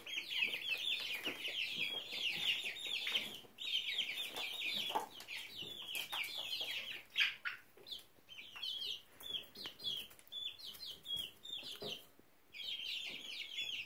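A group of young chickens peeping, a fast, continuous run of short high cheeps that stops briefly about twelve seconds in.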